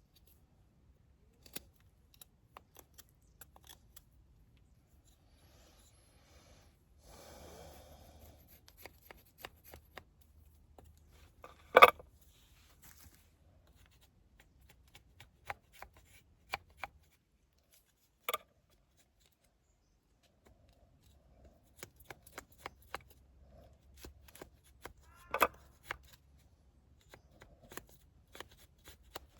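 Small objects being handled close by: scattered clicks and taps, a brief rustle about seven seconds in, and one sharper knock about twelve seconds in.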